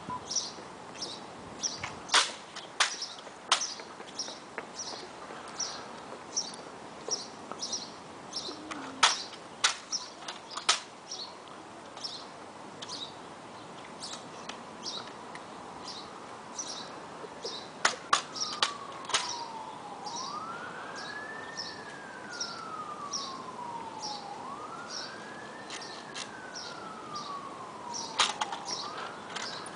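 High chirps repeat evenly about twice a second, with scattered sharp cracks that are the loudest sounds. From a little past halfway a siren wails, rising quickly and falling slowly about every four seconds.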